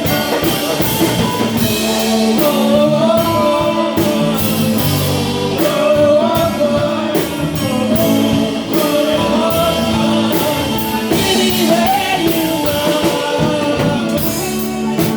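A rock-style song playing: a full band with a steady drum beat and a wavering sung melody on top.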